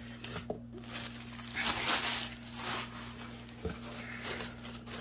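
Paper rustling and crinkling as hands fold back tissue paper and dig through crinkle-cut paper shred in a cardboard box, loudest for about a second in the middle.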